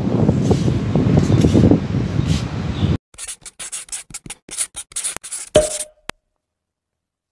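Wind buffeting the phone's microphone, cut off sharply about three seconds in. A pen-on-paper writing sound effect follows: a quick run of short scratchy strokes that ends about six seconds in.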